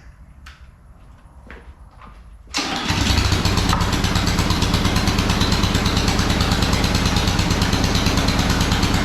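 A few light clicks and knocks, then a small gas engine starts about two and a half seconds in, catches at once and runs steadily and loudly.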